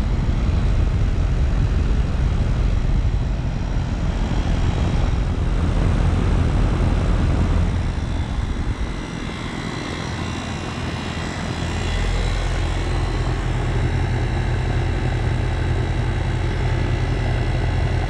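2020 Goodman GSX14 2-ton air-conditioner condensing unit running just after its first startup of the season, its scroll compressor humming steadily under the rushing whoosh of the condenser fan, a smooth, healthy-sounding run. The deepest part of the hum fades for a few seconds about halfway through, then returns.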